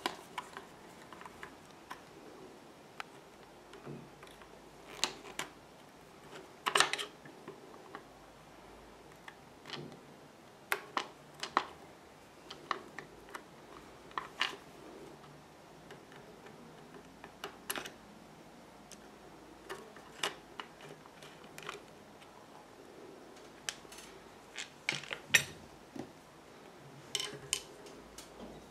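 Irregular metal clicks and taps of a screwdriver and loose parts on a Pfaff 1245 industrial sewing machine head as its face cover is unscrewed and taken off, with a few sharper clinks among them.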